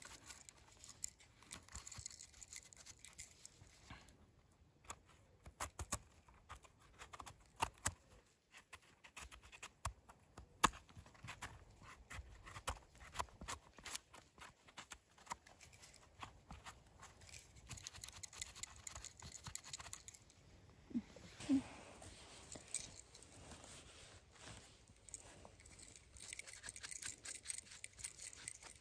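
Small knife scraping and trimming the dirty stem of a freshly picked bolete mushroom, heard as a quiet run of irregular scratches and small clicks. A brief low pitched sound comes about two-thirds of the way through.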